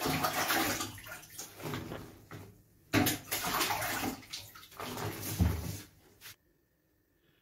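Water splashing and sloshing in a plastic basin of foamy liquid detergent mix as the last of the water is added and stirred in. It comes in two spells with a short break about 3 seconds in, then stops suddenly.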